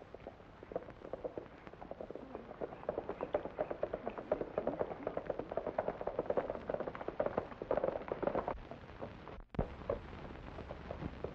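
Hoofbeats of several horses galloping, a rapid irregular clatter that grows louder as the riders approach. It breaks off with a brief dropout near the end, and a few quieter hoof knocks follow.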